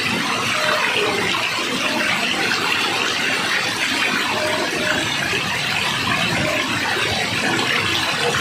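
Water rushing steadily, an even unbroken noise, as from a waterfall or fast stream.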